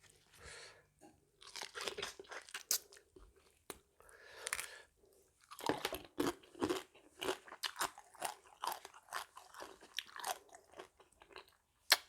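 Close-up chewing and crunching while eating a spicy mixed-seafood salad of shrimp, crab, shellfish and squid: irregular crisp bites and chews, with one sharp click near the end.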